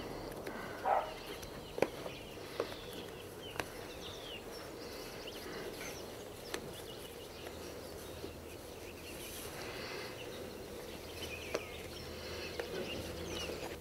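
Quiet rural outdoor ambience with birds calling now and then in short chirps, and a few faint sharp clicks.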